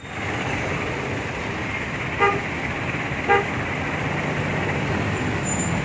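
Steady street traffic with a vehicle horn giving two short toots about a second apart.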